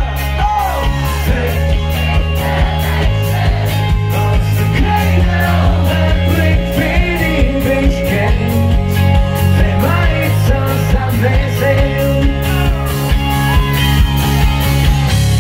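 Live pop-rock band playing a song over a PA, with a steady drum beat, bass and guitar, and voices singing.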